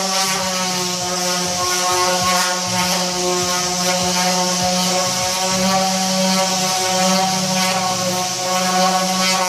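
Electric power tool running at steady speed while sanding wood, a constant motor tone with a rubbing hiss over it; right at the end the motor begins to slow down.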